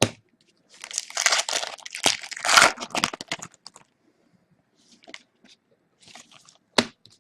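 Foil trading-card pack wrapper being torn open and crinkled, a dense crackling for a few seconds, followed by a few light clicks and one sharp snap near the end as the cards are handled.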